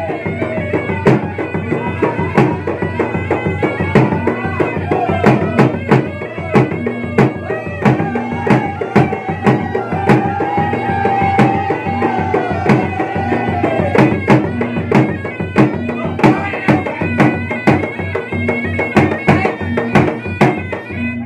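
Bugis gendang drums beaten in a fast steady rhythm, about three strokes a second, with a wind instrument playing a wavering melody over them and holding one long note around the middle.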